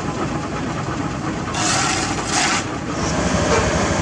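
Heavy diesel construction machinery running with a steady low rumble that grows louder near the end, broken about halfway through by two short bursts of hiss.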